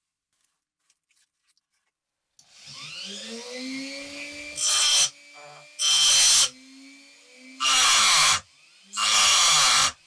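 A small handheld rotary power tool spins up, rising in pitch, and keeps running. It is pressed against the work four times in short, loud bursts of grinding.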